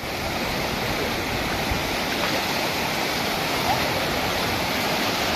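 Sea surf washing in over the shallows, a steady rush of foaming, breaking waves.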